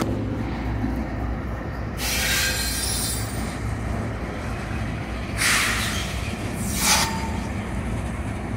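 Freight train with diesel locomotives rumbling steadily across a steel truss railway bridge, with a low running hum. Short bursts of high screeching noise come about two, five and a half, and seven seconds in.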